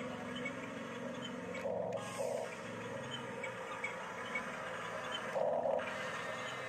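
Electric drive motors and gearboxes of a Huina 1569 RC bulldozer whirring steadily as it pushes soil with its blade. The sound gets briefly louder a few times, longest about five and a half seconds in.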